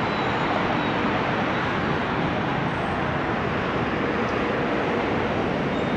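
Steady roar of city road traffic, an even wash of vehicle and tyre noise with no single engine standing out.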